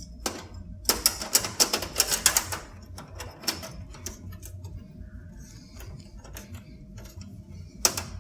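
Fast run of small metallic clicks and rattles, then scattered single clicks and one sharp click near the end, over a faint steady hum: a graphics card and its metal slot bracket being handled and worked into a PC case.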